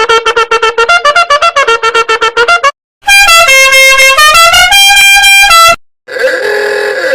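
A run of meme sound-effect clips. First comes a rapid stuttering tune of short notes over a steady tone. After a short gap, a loud, bright horn-like melody of held notes steps up and down in pitch. It cuts off, and a brief wavering tone plays near the end.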